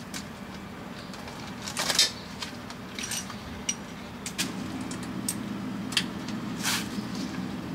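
Metal tools and small parts clinking and knocking as they are handled, about half a dozen separate clinks, the loudest about two seconds in. A steady low hum underneath grows louder about halfway through.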